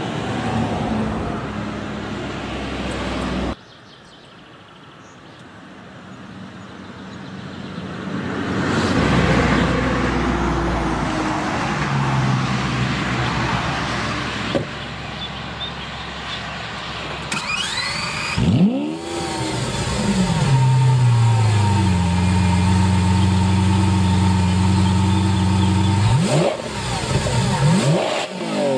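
Lamborghini Aventador's 6.5-litre V12 revving and accelerating in several separate takes. After a sudden cut, one swells up to a loud pass. Later the revs sweep sharply up and down, fall back to a steady pitch, and sweep up again near the end.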